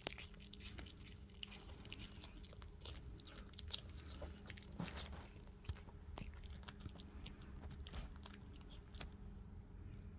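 Apple pieces being chewed: faint, irregular crisp crunches and clicks.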